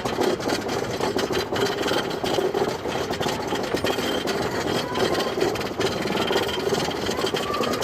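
Roller coaster train running on its track: a steady mechanical clatter and rumble, with rapid rattling clicks throughout.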